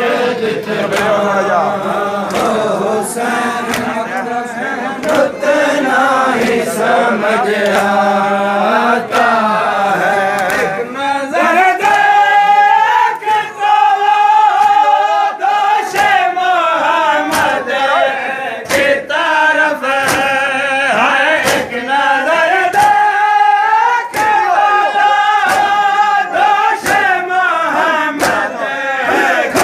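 A group of mourners chanting a Shia mourning lament (nauha) together to the sharp slaps of matam, hands beating on chests about once a second. About ten seconds in, the chant lifts to a higher, held pitch.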